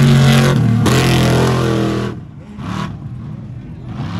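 Off-road race truck engine revving hard, its pitch rising, then dropping away suddenly about two seconds in; a quieter stretch with one short burst follows.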